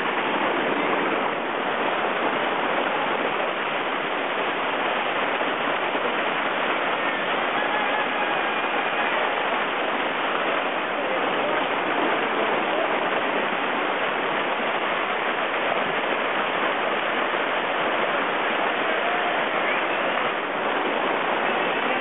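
Whitewater rapids rushing, a loud steady roar of churning river water.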